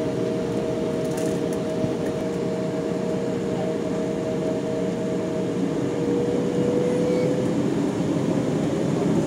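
Jet airliner engines heard from inside the cabin while taxiing onto the runway: a steady hum with a faint high whine that fades out a little past halfway, the rumble getting slightly louder near the end.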